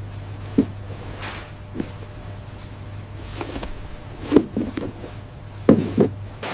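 Several short light knocks, about five, two of them close together near the end, over a steady low hum.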